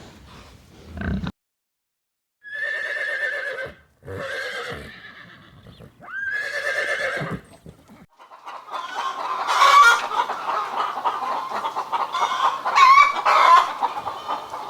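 Farm animal calls: three separate drawn-out calls with a wavering pitch, then a busy stretch of many overlapping calls and clucks, like a barnyard flock.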